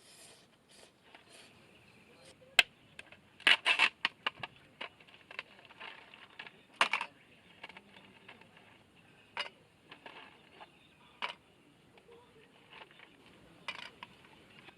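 Irregular sharp clicks and light knocks, thickest in a quick cluster about three and a half seconds in and again near seven seconds, with sparser clicks after.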